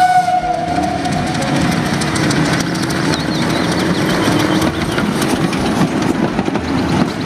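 Steam train sounds: a whistle tone fading out in the first second, then the train running with a continuous rapid clatter.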